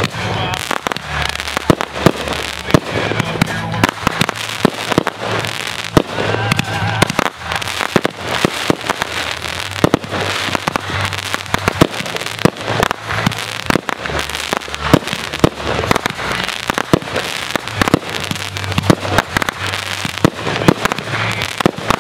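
Aerial fireworks going off in a continuous barrage: many sharp bangs every second, with no let-up.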